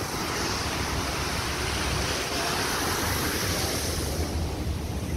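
Water rushing and foaming in the bow wave of a loaded pushed barge passing close below, with a low wind rumble on the microphone. The hiss fades about four seconds in as the bow moves out of range.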